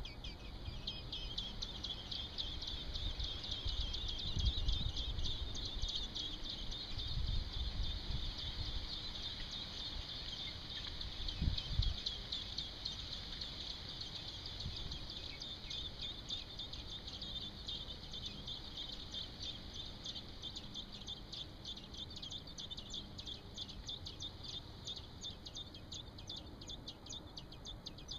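Baby robins in the nest begging for food: a rapid, continuous stream of high, thin chirps. A few low thumps sound in the first half.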